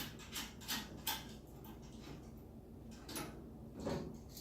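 Light metal clicks of a small bolt, washer and nut being handled on a metal pipe clamp as the nut goes on: a quick run of clicks in the first second, then two more near the end.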